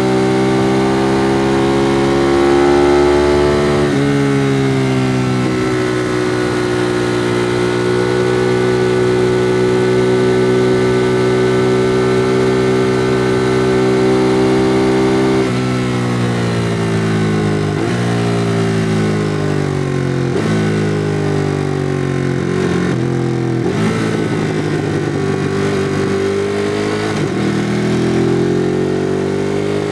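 2016 Ducati Monster 821's 821 cc Testastretta L-twin, on its stock exhaust, pulling up through the revs, then changing up a gear about four seconds in and running steady for about ten seconds. Past the middle the revs fall in several steps, each jumping back up as the bike is shifted down while slowing, and near the end the engine pulls up again.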